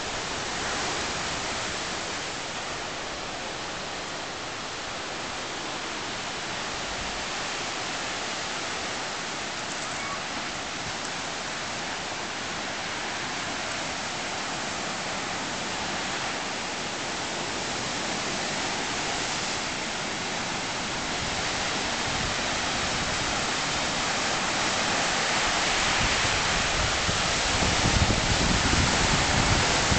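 Ocean surf breaking on a beach: a steady wash of waves that slowly grows louder, with a low rumble building near the end.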